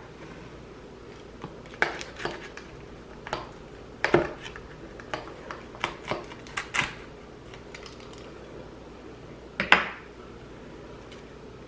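Pizza cutter wheel crunching through a crisp tortilla pizza crust and clicking on a plastic cutting board: a string of short, sharp crunches and clicks, with one more loud click near the end.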